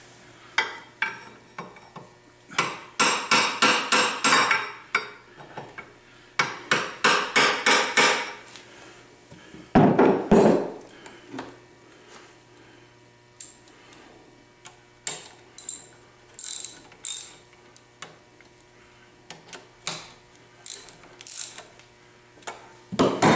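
Ratchet wrench clicking in two quick runs as it is swung back and forth on the connecting-rod cap bolts inside the compressor crankcase. A single loud metal clunk comes about ten seconds in, followed by scattered lighter clicks.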